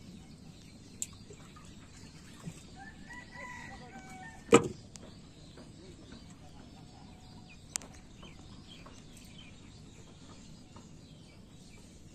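A bird calls briefly about three seconds in, followed by a single loud, sharp knock about half a second later over a faint outdoor background. A few faint clicks are scattered around it.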